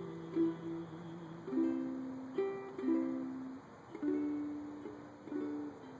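Ukulele strumming chords, each chord left to ring and fade before the next strum.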